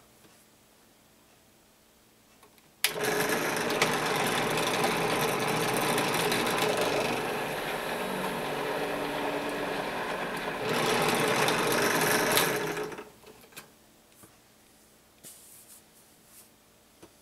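Benchtop drill press spinning a Ballistic Products double roll crimper to roll-crimp a shotshell hull. The motor starts abruptly about three seconds in and runs steadily for about ten seconds, getting louder for a couple of seconds near the end of the run, then winds down.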